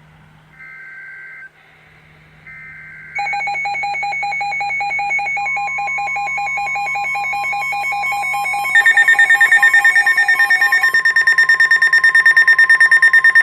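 Emergency Alert System SAME header data bursts: two short screeching bursts of data tones. From about three seconds in, weather alert tones sound: a pulsing alarm tone, joined by the steady NOAA Weather Radio warning tone, then from about nine seconds a loud rapid beeping. These signals herald a severe thunderstorm warning.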